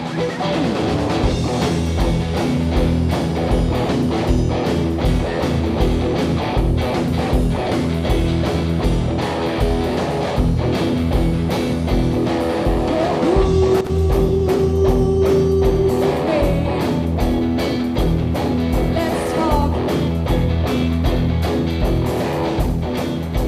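Live rock band playing: two electric guitars, electric bass and a drum kit, with a steady kick-drum beat under the guitars. A long held note rings out about halfway through.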